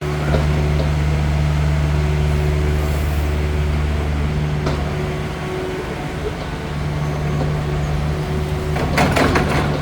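Mini excavator's diesel engine running steadily, easing off slightly midway, with a short burst of clattering and scraping about nine seconds in.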